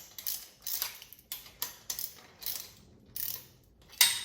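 Socket ratchet wrench clicking in quick, uneven strokes as a bolt is tightened, with a sharper, louder click near the end.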